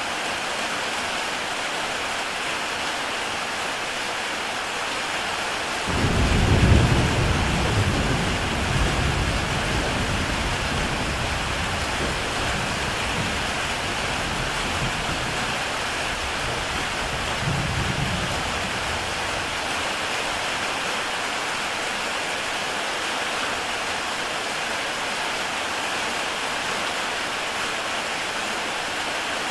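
Heavy rain falling steadily on a tile roof. About six seconds in a roll of thunder rumbles low and fades over several seconds, with a smaller rumble swelling again later.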